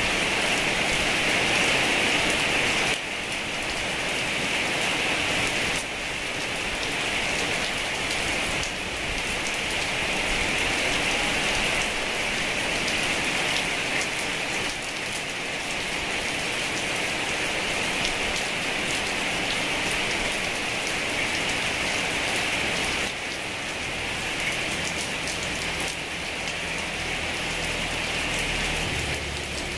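Heavy rain falling steadily, an even, dense hiss with a few slight sudden dips in level.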